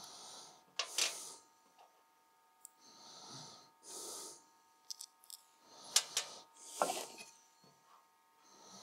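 Metal nuts clicking as they are set down one by one to raise the workpiece off the bed of a diode laser engraver: scattered sharp clicks, some in quick pairs. Between them come soft breathy rushes of about half a second each.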